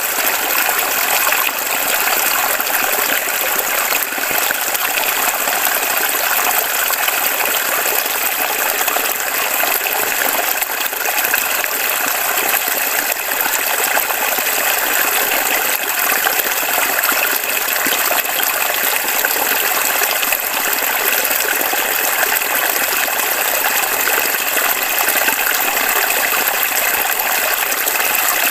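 Shallow creek flowing over a stony bed, a steady, even rush of running water.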